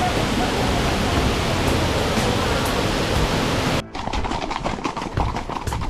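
Waterfall: a steady, even rush of falling water that cuts off suddenly nearly four seconds in. A run of irregular small knocks and clicks follows it.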